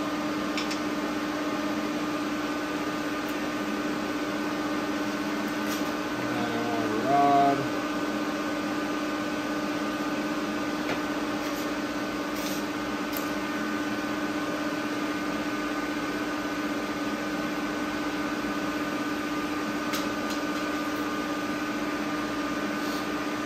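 Steady machine hum with a few constant tones. A brief pitched sound about seven seconds in is the loudest moment.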